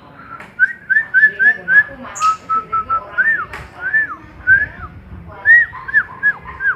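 Asian pied starling (jalak suren) singing: a run of clear whistled notes in short rising-and-falling arcs, starting about half a second in, with a few short clicks between them.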